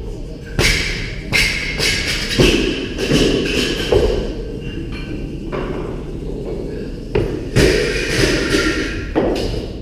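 Repeated thuds and knocks from barbell lifting on a rubber gym floor. They come in two clusters, from about half a second to four seconds in and again from about seven seconds: feet stamping down as the lifter moves under the bar, and plates knocking.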